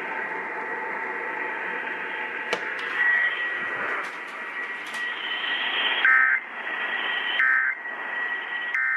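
Radio static hiss with a faint steady whistle and a few clicks, then near the end three short warbling data bursts: the Emergency Alert System end-of-message tones that close the test broadcast.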